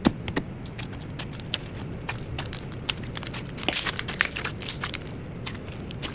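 Slime being squeezed and poked by hand, giving many small crackles and pops, thickest about halfway through.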